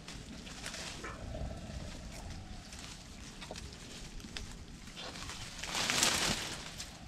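Asian elephant feeding on a tree, pulling leafy branches down with its trunk: twigs snap in scattered cracks and leaves rustle. The loudest moment is a burst of rustling about six seconds in, as a branch is dragged down.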